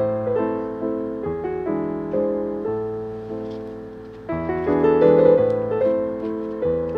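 Background piano music of struck notes left to ring and fade, growing fuller and louder about four seconds in.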